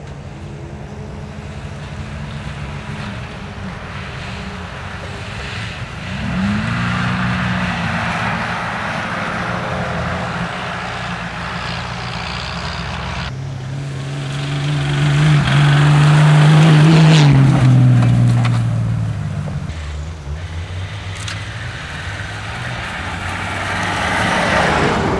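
Off-road 4x4 engines running under load on a rough grass course. One revs up about a quarter of the way in, another holds a loud high note past the middle and then drops in pitch, and a vehicle grows louder as it approaches near the end.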